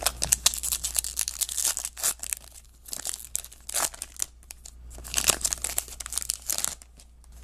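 Trading-card pack wrapper being torn open and crinkled in the hands: an irregular run of crackles and rustles, pausing briefly twice.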